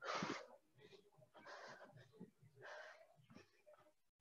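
A woman breathing hard from exertion, with short puffed breaths a little over a second apart. The first breath is the loudest and the rest are fainter.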